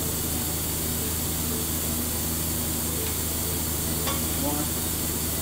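Stick-welding arc sizzling and crackling steadily as worn metal is built up with weld, over a steady low electrical hum.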